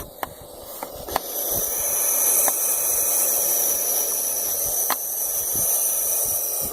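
Young barn owls hissing, a loud steady rasping hiss that fades briefly, then swells and holds before cutting off suddenly. A few sharp beak clicks from their beak chomping, a threat display at the person near the nest.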